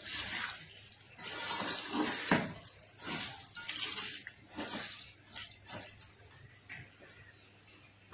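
Hands being washed under a running tap, water splashing irregularly into a sink and dying down over the last two seconds.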